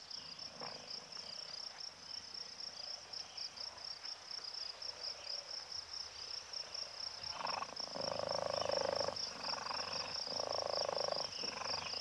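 Steady, high, rapidly pulsing trill of a savanna insect chorus. In the second half it is joined by several louder, lower pulsed calls, each lasting up to about a second.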